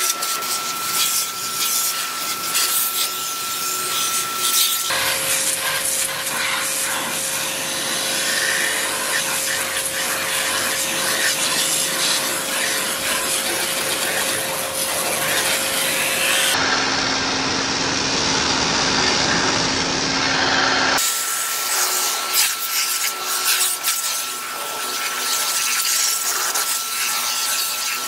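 High-pressure washer jet spraying water onto a scooter's plastic body panels: a steady hiss of spray over the washer's motor hum. The hum changes pitch abruptly about five, sixteen and twenty-one seconds in.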